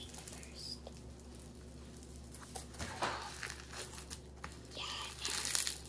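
Slime being stretched, pulled apart and squished by hand, giving soft crinkling and tearing sounds with small clicks, loudest about five seconds in.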